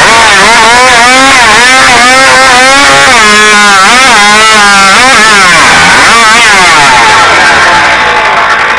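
A two-stroke competition chainsaw fitted with a tuned pipe exhaust, run flat out in a timed speed cut through a squared timber. Its pitch sags each time the chain bites under load and climbs back up, and it eases off near the end as the cut is finished.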